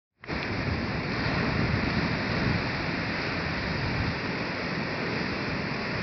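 Pacific Ocean surf washing onto a beach, a steady rush of waves.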